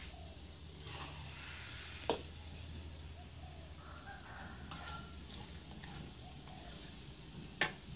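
A spatula stirring thick shrimp paste in a wok, striking the pan sharply twice, about two seconds in and near the end, over the quiet simmer of the paste.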